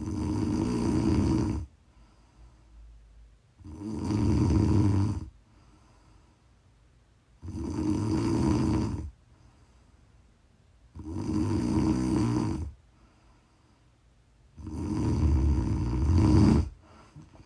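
A woman snoring in her sleep: five snores, one every three and a half to four seconds, each lasting under two seconds, with quiet breathing gaps between.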